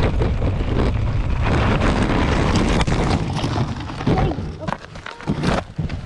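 Wind buffeting a helmet camera's microphone and bike tyres rolling over a rocky dirt trail on a fast downhill. About four seconds in the rush stops short as the tyre slides out and the bike goes down, with a few knocks and scrapes as the rider and the camera hit the stony ground.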